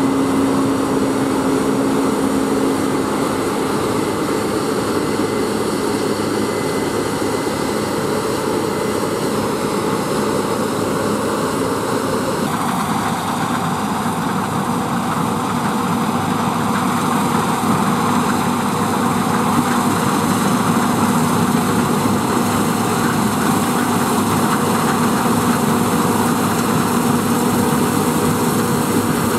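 Case IH Axial-Flow combine harvesters running at work cutting oilseed rape: a steady engine and threshing drone with a constant low hum. About twelve seconds in the sound changes abruptly to a slightly different, lower hum.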